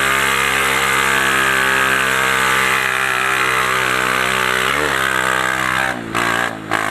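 Honda CG 150 Titan's single-cylinder engine running loud through a straight-through exhaust pipe, held at a steady pitch while riding uphill. About five seconds in the note dips briefly and recovers, and near the end it cuts in and out several times as the throttle is opened and closed.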